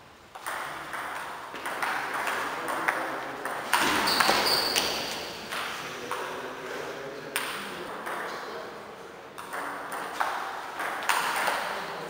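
Table tennis rally: the ball clicking sharply off rubber paddles and the table in quick succession, with a brief high squeak about four seconds in.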